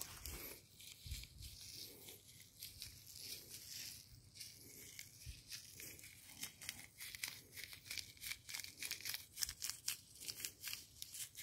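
Faint rustling and crinkling of a seed packet being handled and shaken as vegetable seeds are scattered by hand. The crackles come faster and denser toward the end.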